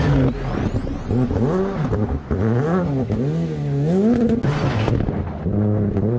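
Rally car engines revving hard on a gravel stage. The pitch climbs and drops in quick repeated sweeps as the driver works the throttle and gears through the corner, with a short loud rush of noise about four and a half seconds in as a car passes close to the camera.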